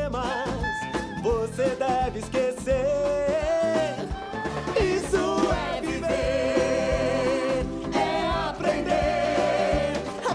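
Upbeat show-tune finale: male voices singing long held notes over a lively band accompaniment.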